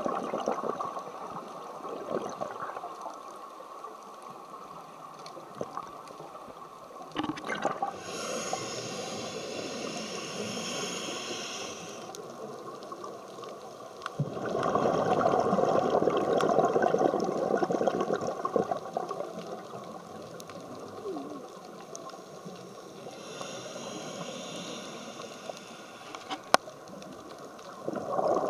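Scuba diver breathing through a regulator underwater: a hissing inhalation about eight seconds in, then a longer, louder burble of exhaled bubbles, and a second inhalation near the end. A single sharp click comes shortly before the end.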